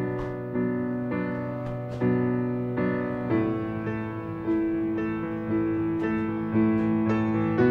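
Background music led by piano or electric piano, playing slow, gentle chords that change about once a second.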